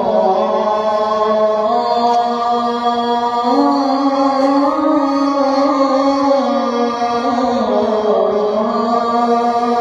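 A muezzin's voice sounding the adhan, the Islamic call to prayer, holding one long drawn-out phrase without a break. The pitch climbs about a third of the way in and sinks back down near the end.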